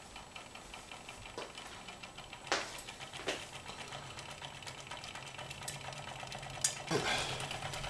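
Small copper-top Stirling engine running under the light load of a flat fan blade, its moving parts making a rapid mechanical ticking clatter with a few louder clicks. A low hum comes in about halfway through.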